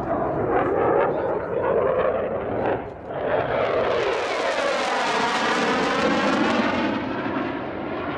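Saab JAS-39C Gripen's single Volvo RM12 jet engine roaring through a low display pass. The roar swells about three seconds in into a loud, bright rush with a phasing swish that sweeps down and back up as the jet goes by, then fades back to a duller rumble near the end.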